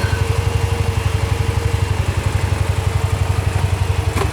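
Engine running at a steady idle with an even, low throb, and a faint steady whine above it that stops near the end.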